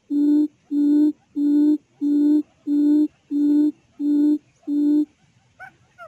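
A quail's low hooting call, repeated evenly at about three hoots every two seconds, stopping about five seconds in. Soft chirping bird calls follow near the end.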